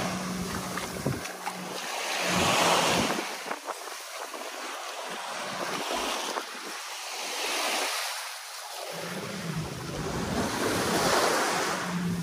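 Sea waves washing onto a rocky beach, the rush swelling and fading every few seconds. Wind rumbles on the microphone at times.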